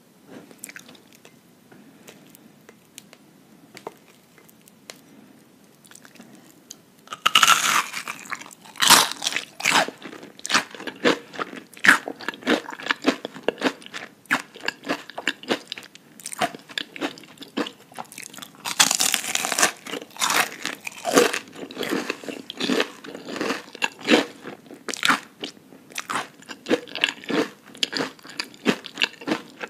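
Close-miked crunching of crispy breaded fried onion rings being bitten and chewed. After a few quieter seconds, a loud crunchy bite comes about seven seconds in and another about nineteen seconds in, each followed by rapid crackly chewing.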